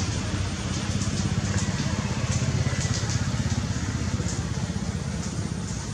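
An engine running steadily at low revs, a low rumble with a fast, even pulse.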